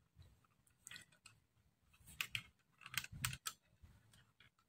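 Faint, irregular clicks and scrapes of fingers gripping and working the plastic rotary knobs on a Taffware V8S sound card, prying them off their potentiometer shafts.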